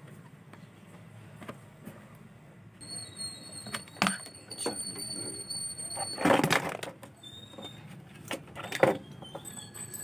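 Clicks and knocks of hands handling a TV power-supply board and multimeter probes, loudest a little past the middle. A high, steady whine sounds for about three seconds from near the three-second mark and comes back near the end.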